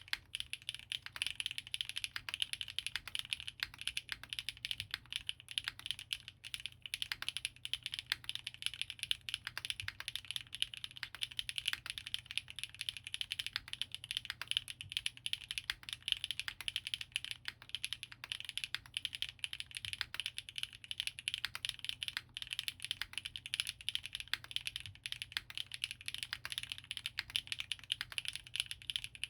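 Continuous, fast typing on a custom tenkeyless mechanical keyboard: Gateron RAW switches lubed with Krytox 205g0 in an aluminium leaf-spring plate, topped with GMK keycaps. It is a dense stream of short keystroke clacks.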